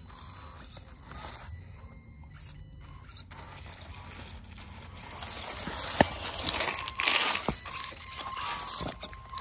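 A person scrambling and falling in dry leaves and brush: a sharp knock about six seconds in, then a burst of crunching and rustling, with a faint thin whine near the end.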